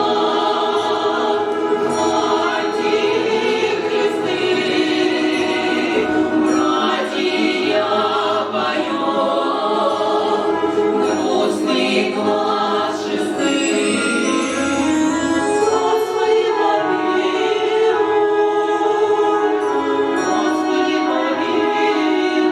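A choir singing a song in chorus, with sustained, held notes.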